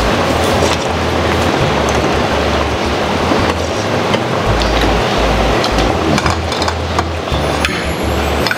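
Metal utensils clinking now and then against bowls and a steel hot pot, over a loud steady hiss like rain.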